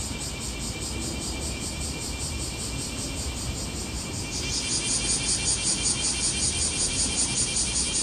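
Cicadas calling in a fast, even pulsing rhythm, about three to four pulses a second, over a low rumble of city traffic; the cicadas grow louder about halfway through.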